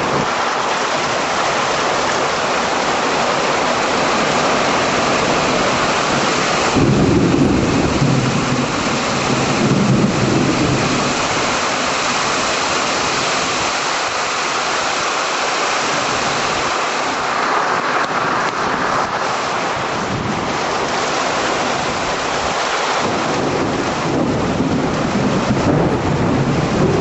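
Heavy rain pouring steadily during a severe thunderstorm. Thunder rumbles about seven seconds in for several seconds, and again near the end.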